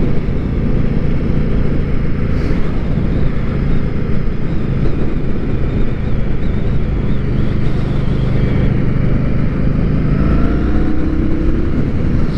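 Indian Scout Bobber's liquid-cooled V-twin engine running steadily under way, rising a little in pitch near the end as it picks up speed.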